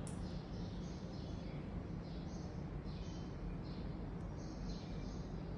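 Faint chirping of small birds: short high calls, several a second at irregular intervals, over a steady low hum.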